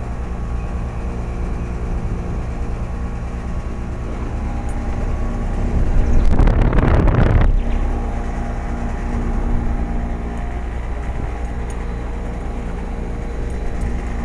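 Luxaire Acclimate Series heat pump outdoor units running in cooling mode: a steady compressor-and-fan hum with several steady tones. About six seconds in, a loud rush of noise lasts about a second and a half.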